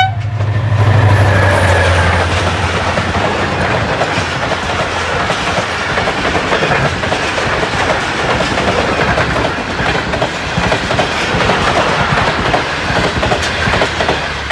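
A train passing close by. Its horn cuts off at the very start, the locomotive goes by with a low engine drone for the first few seconds, and then the wagons' wheels clatter steadily over the rail joints.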